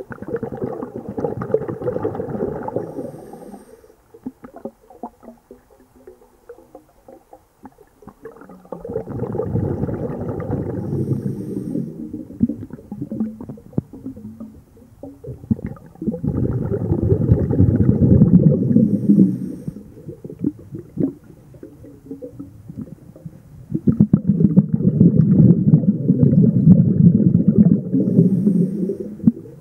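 A diver breathing underwater: bursts of exhaled bubbles rumble for three or four seconds at a time, about every eight seconds, each ending in a short faint hiss.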